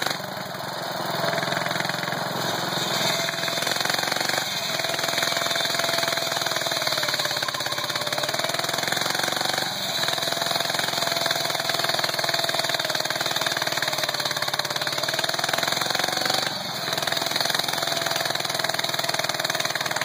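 Ottawa Buzzmaster tree saw's Wisconsin engine running steadily while its circular blade cuts into the base of a tree trunk. The engine note rises and falls slowly, with brief dips about halfway through and again near the end.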